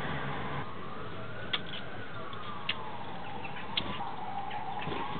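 A siren wailing, its pitch sliding slowly up and down over a steady hiss, with three short sharp clicks about a second apart.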